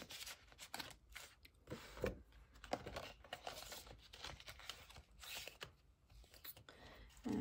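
Clear plastic binder pockets and polymer banknotes rustling and crinkling as they are handled, with small irregular clicks and taps.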